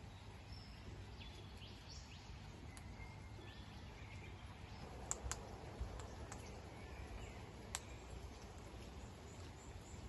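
A few sharp clicks and ticks of Australian king parrots' beaks pecking seed on a railing, bunched in the middle, over a low outdoor hum. A few faint bird chirps sound in the first couple of seconds.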